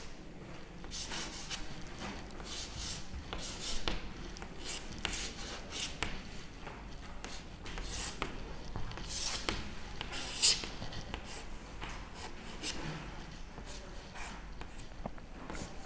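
Chalk drawing on a blackboard: a run of short, scratchy chalk strokes against the board, one after another with short gaps, the loudest about ten seconds in.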